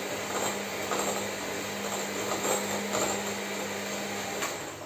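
Bosch electric hand mixer running steadily, its beaters whisking a banana and cream mixture in a glass bowl, with a constant motor hum; it stops right at the end.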